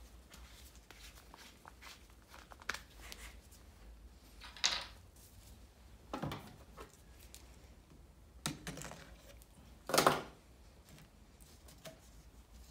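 Gloved hands handling a bottle at a table: scattered brief rustles, scrapes and light knocks, a few seconds apart, the loudest about ten seconds in.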